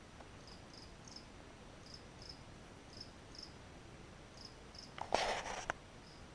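A cricket chirping faintly, short high chirps mostly in pairs with pauses of under a second between them. A brief louder burst of noise breaks in about five seconds in.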